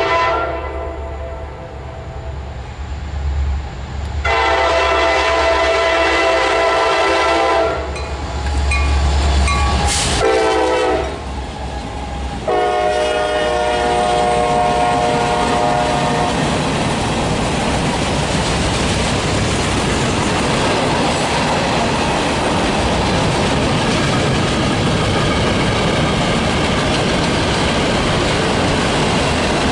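Locomotive air horn sounding several long chord blasts and a short one, then falling silent about halfway through, as the train runs past with steady rumbling and wheel clatter on the rails.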